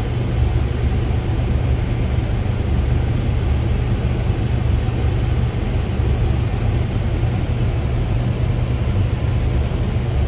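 Case IH 7088 combine's diesel engine running steadily under load while the unloading auger empties wheat from the grain tank into a semi trailer, a continuous low drone.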